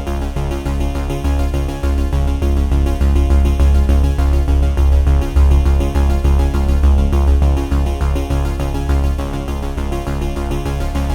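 Instrumental electronic background music with a strong, pulsing bass.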